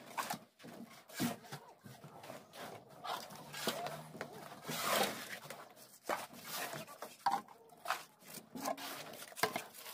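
Wet concrete being spread and worked by hand over a reinforced roof slab: irregular scraping strokes of a trowel and feet in the mix.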